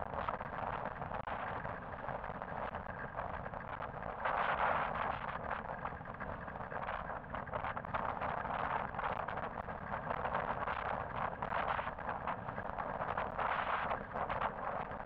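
Steady rushing wind and road noise from travelling along a busy multi-lane road, swelling louder now and then.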